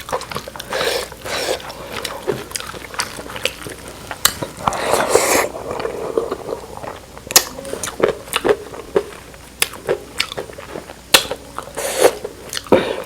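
A person eating close to the microphone, mukbang-style: chewing and biting, with scattered sharp clicks all through and a longer noisy stretch about five seconds in.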